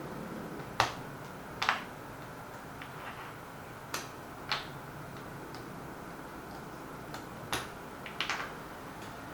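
Mechanical keyboard keys fitted with Gateron Ink switches pressed one at a time: three keystrokes, each a sharp bottom-out clack followed about half a second to a second later by a softer clack on release.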